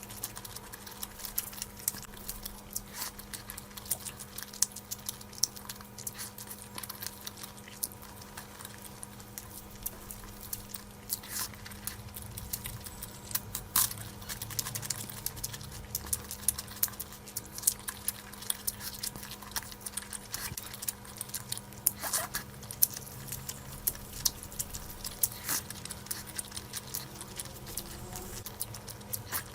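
Close-miked eating: chewing with many irregular wet mouth clicks and smacks, over a faint steady hum.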